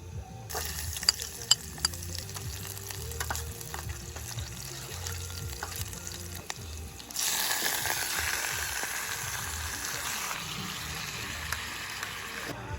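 A sizzling hiss with scattered crackles, turning louder and steadier about seven seconds in, over soft background music.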